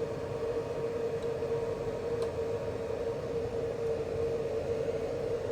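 Steady mid-pitched hum over an even fan-like hiss from the amplifier test bench during a dyno power run.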